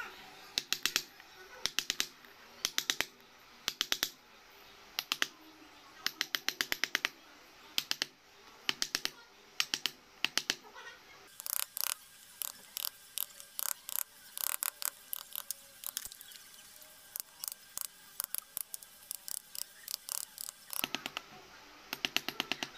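Hand chisel cutting and prising chips out of a teak block, heard as clusters of quick sharp clicks and cracks of splitting wood fibre. The clusters come about once a second at first and grow denser from about halfway.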